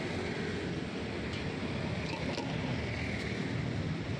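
Steady roar of a gas wok burner at a street-food stall, with a few light metal clicks from the spatula against the steel wok.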